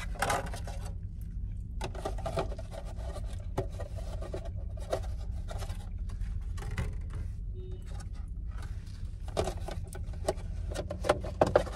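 Crinkling, crackling and clicking of clear plastic takeout containers being handled, with a few louder clicks near the end, over a steady low hum inside a car.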